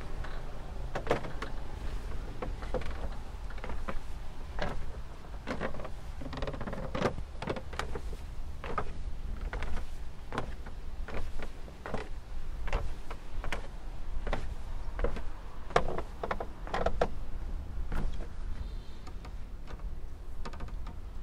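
Footsteps on stone paving, an uneven series of short steps about one to two a second, over a steady low rumble of wind on the microphone.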